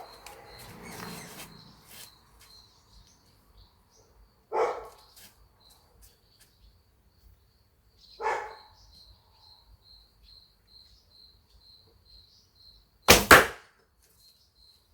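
A shot from a laminated Korean-style traditional horse bow: a loud, sharp double snap of the bowstring's release near the end. Before it, two single dog barks at a distance, over steady insect chirping.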